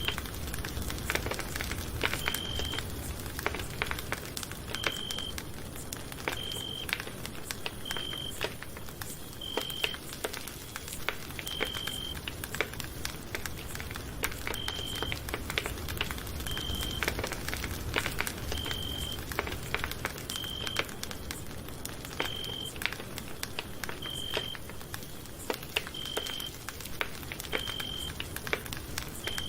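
Campfire crackling with a dense, irregular run of pops and snaps. Over it, a short high-pitched beep-like tone repeats about every one and a half to two seconds.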